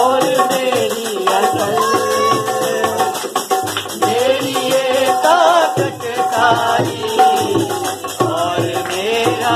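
Dholak, a two-headed barrel drum, played by hand in a quick, busy rhythm, with a wavering melody line over it, accompanying a Hindi/Urdu Christian hymn.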